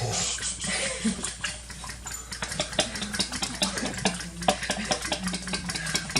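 Kitchen cooking sounds: a utensil clinking and scraping against a bowl or pan in quick irregular taps, over a faint steady low hum.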